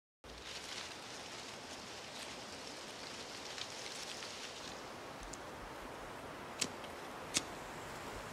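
Steady hiss of outdoor woodland ambience that cuts in suddenly after a brief silence, with two sharp clicks of a cigarette lighter being flicked near the end.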